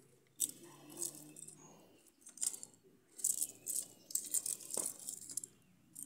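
Dry kindling splints and small sticks rustling and snapping as they are handled and stacked by hand to build a fire, in irregular crackly bursts.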